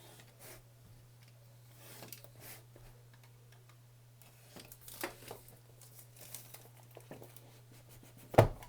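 Smartphone retail box being opened by hand: scattered crinkling and tearing of packaging, with a sharp knock near the end.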